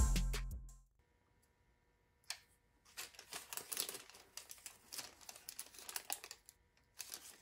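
Background music fading out within the first second. After a short pause and a single click, parchment paper crinkles and rustles in small, irregular crackles as it is handled and wrapped around a voice-coil former.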